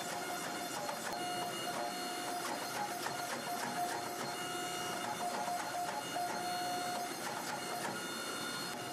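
Hydraulic forging press running with a steady mechanical hum and a whine that comes and goes, as its flat dies squeeze a hot steel billet.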